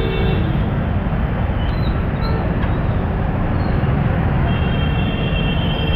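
Rush of congested road traffic, mostly motorbikes and cars, a steady low engine rumble throughout. Vehicle horns sound briefly at the start and again near the end.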